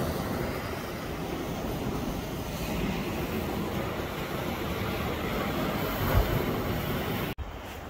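Steady rushing of wind on the microphone with the sea's choppy water, with a brief low bump about six seconds in; the sound cuts off abruptly shortly before the end.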